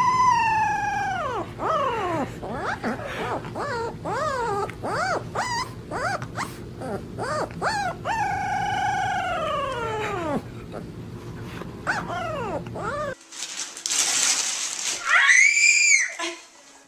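Puppy howling: a long falling howl, then a string of short, wavering yips and howls, and another long falling howl about eight seconds in. After a cut about 13 seconds in, a brief high rising-and-falling squeal over a hiss.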